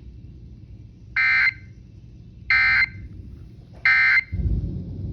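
Emergency Alert System SAME data tones: three short bursts of a harsh warbling screech about a second apart, the end-of-message code that closes the tornado warning broadcast. Near the end the broadcast audio comes back in with a low rumble.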